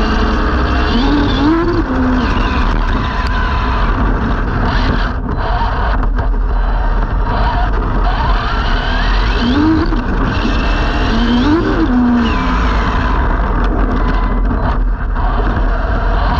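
Onboard sound of an Arrma Limitless RC car at speed, recorded from on top of the car: steady wind and tyre rush on asphalt, with the brushless motor's whine rising and falling in pitch as the throttle changes.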